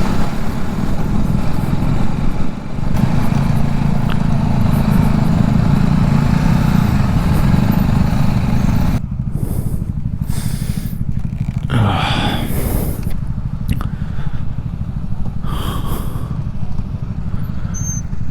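Motorcycle engine running under way, mixed with wind rush; about halfway through the wind noise drops away and the engine carries on at a lower, steadier level.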